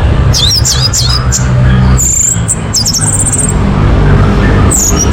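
Orange-headed thrush singing quick, varied high whistled phrases with sliding notes, pausing briefly toward the end before resuming, over a steady low rumble.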